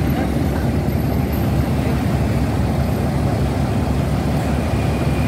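Mercedes-Benz OH1626 bus's diesel engine idling: a steady low rumble.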